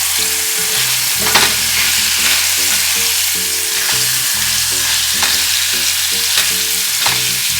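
Chicken wings sizzling in olive oil in a hot pan, a steady frying hiss, while they are stirred with a utensil that scrapes or clicks against the pan about a second and a half in, around five seconds in and near the end.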